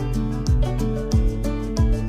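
Background music with a steady beat, about three beats in two seconds, over sustained notes.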